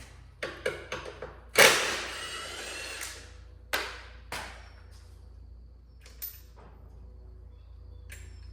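Metal hand tools and parts clinking a few times, then one loud metallic clang that rings on for over a second, followed by a couple more knocks and a light click.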